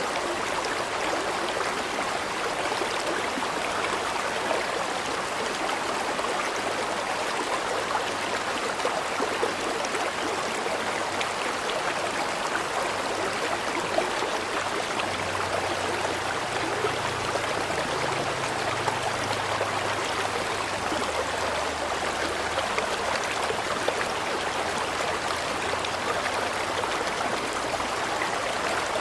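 River water flowing steadily: a continuous, even rush with small splashes scattered through it.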